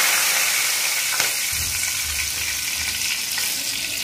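Cumin seeds, bay leaves and whole spices sizzling in hot oil in a steel kadhai: a steady hiss that slowly eases, with a faint tick about a second in.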